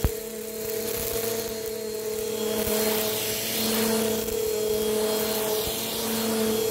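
Bissell PowerForce upright vacuum cleaner running with a steady motor whine, the rush of suction swelling and fading as the head is pushed back and forth over carpet. A short knock right at the start.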